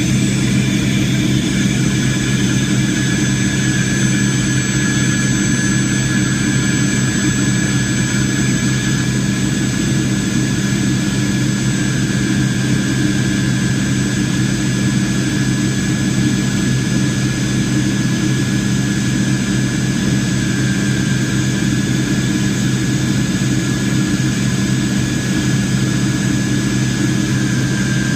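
Aircraft engines running steadily, heard inside the passenger cabin as a constant hum with a few steady tones and no change in level.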